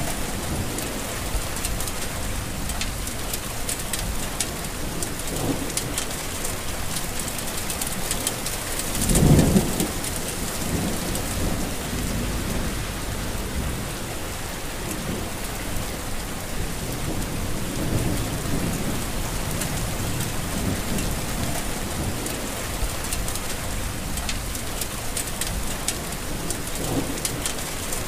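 Heavy rain falling steadily, with a fine patter on top and soft low swells underneath; one louder, brief low rumble comes about nine seconds in.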